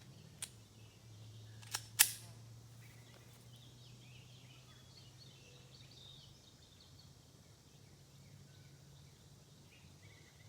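Quiet outdoor background with a low steady hum and faint bird chirps, broken in the first two seconds by a few short sharp clicks, the loudest about two seconds in.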